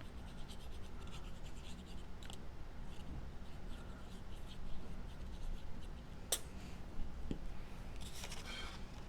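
Cardstock craft pieces being handled and put together by hand: faint scratching and rustling of paper with small ticks, a sharp click about six seconds in, and a longer scratchy rustle near the end.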